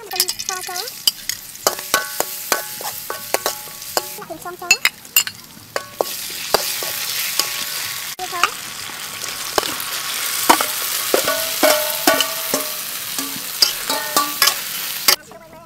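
Chillies, garlic and then shrimp stir-frying in oil in a wok, sizzling steadily while a ladle scrapes and clicks against the pan. The sizzle grows louder about six seconds in and cuts off just before the end.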